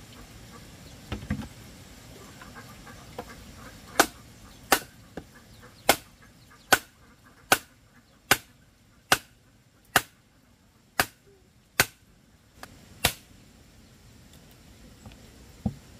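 Hammer blows on wood: about eleven sharp strikes at a steady pace, roughly one every 0.8 seconds, starting a few seconds in.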